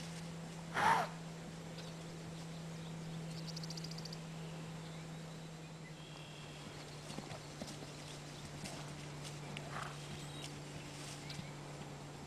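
Shire horses: one short, loud horse call about a second in and a softer one near the end, with faint scattered hoof sounds, over a steady low hum.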